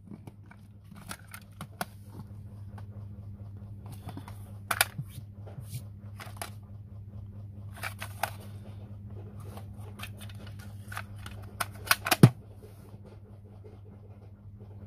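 Hand-handling of plastic cassette gear: scattered clicks, clacks and rattles of a cassette tape and its clear plastic cases being handled, with a cluster of sharper clacks about twelve seconds in. A low steady hum runs underneath.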